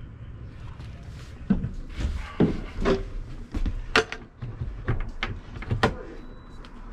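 Thermal imaging camera being set back into its charging mount: a string of sharp clicks and knocks, about eight, starting about a second and a half in, over a low steady hum.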